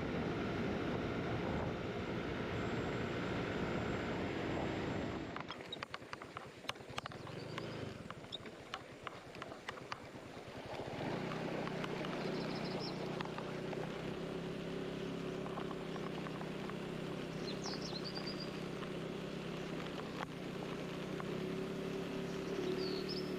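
A vehicle engine running steadily. It breaks off after about five seconds for a stretch of rapid clicks and taps, then the engine returns about halfway through.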